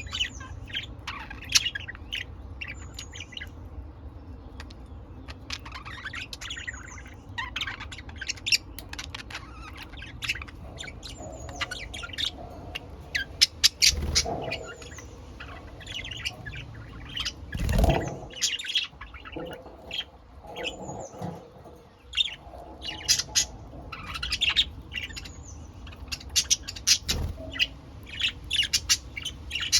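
Pet budgerigars chirping and chattering in quick short calls throughout, with a few dull low thumps around the middle and near the end.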